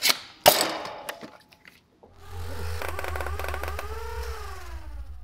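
A few sharp plastic clicks and a knock as a foam dart blaster is handled and lifted away. After a short pause comes a logo sound effect: a steady low mechanical whir with tones that glide downward as it winds down.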